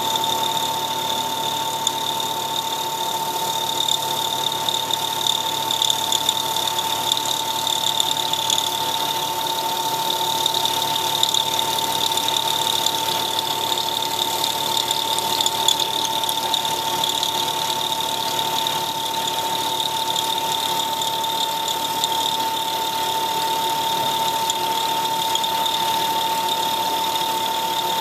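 CNC milling machine cutting a four-start worm thread with a small milling cutter under flood coolant. The machine gives a steady high whine over the hiss of cutting and coolant spray, unchanging throughout.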